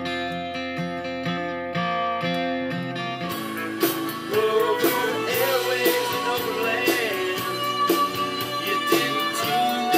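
Vinyl record playing through Q Acoustics 2020i bookshelf speakers, picked up by a camera's built-in microphone, which makes it sound a little thin. It starts with guitar alone; about three seconds in the full band comes in with drums and a singing voice.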